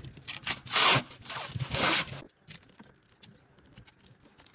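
A sheet-metal coping piece wrapped in plastic film being handled and set in place: two short rasping rubs about a second apart, with small clicks around them.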